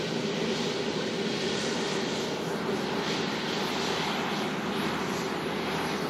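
Boeing 747-8i's four GEnx turbofan jet engines running steadily as the airliner rolls on the ground, a constant jet rush with a low steady hum.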